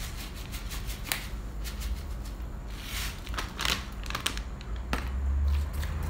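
Plastic pouch of hemp seeds crinkling as it is handled, in several short rustles, with a low rumble about five seconds in.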